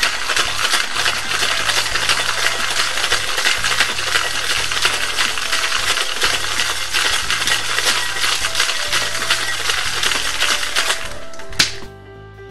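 Ice rattling hard inside sealed stainless steel shaker tins as a cocktail with egg white is shaken vigorously. Background music plays underneath. The rattle stops with one sharp knock shortly before the end.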